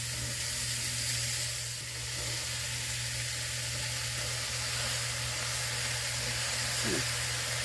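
80/20 ground beef and sautéing onions, green peppers and celery sizzling steadily in hot avocado oil in a pot over a high flame.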